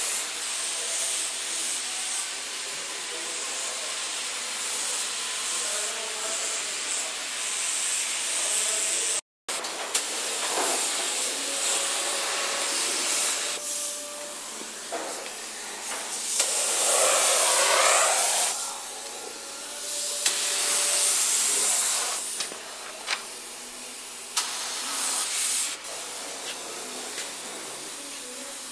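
Compressed-air spray gun hissing as it sprays primer onto a car body, in spells of a few seconds as the trigger is pulled and let go.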